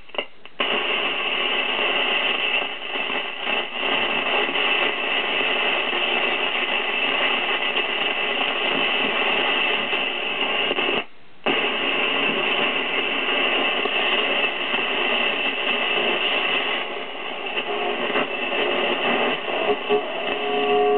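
Zenith Trans-Oceanic 3000-1 transistor radio tuned to a shortwave band, giving out a steady hiss of static. It cuts out briefly twice, just after the start and about halfway through.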